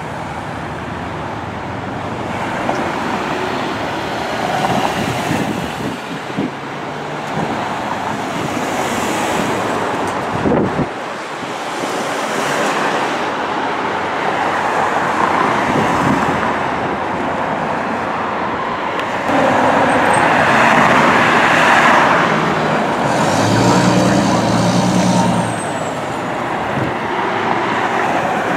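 Road traffic passing along the street, with a louder vehicle swelling past about two-thirds of the way through. Near the end, a fire engine's diesel engine runs as it pulls out of the station.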